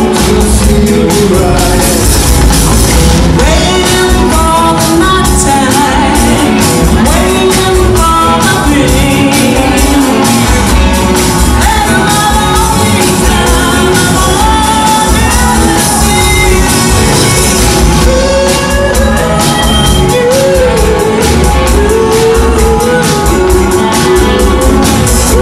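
Live rock band playing loud: electric guitars, bass and drums, with singing over them.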